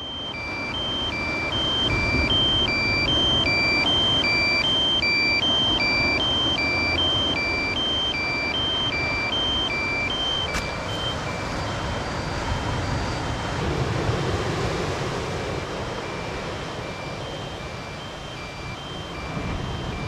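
DJI Mavic Pro remote controller sounding its warning alarm: repeated beeps alternating between two pitches, about one pair every three-quarters of a second. It signals that the drone's battery is critically low (1%) and that the controller has lost its link to the drone. A sharp click comes about halfway through, after which the beeps go on more faintly over a steady rush of wind and surf.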